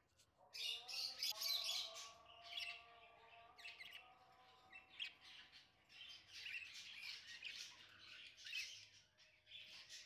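Cockatiels chirping and squawking in quick, busy clusters, starting about half a second in and loudest over the next second or two.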